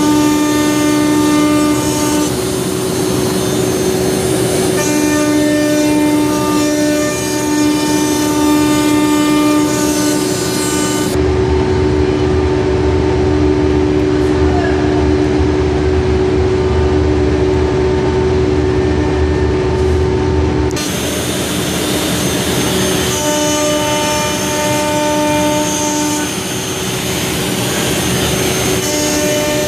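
CNC router spindle running at speed with a steady high whine, its cutter milling a hardwood block with a rough cutting rasp; the whine drops out and returns every few seconds as the cut changes. For about ten seconds in the middle the sound turns to a duller, lower hum.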